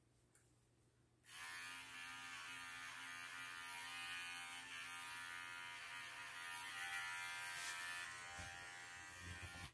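Arco cordless pet clipper switched on about a second in and running steadily as it trims a standard poodle's coat, a steady motor hum.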